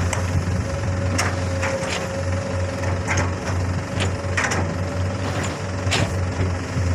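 Komatsu long-arm excavator working, its diesel engine running steadily with a low drone and a steady hydraulic whine. Irregular sharp clanks come every half second to second as the bucket works the embankment slope.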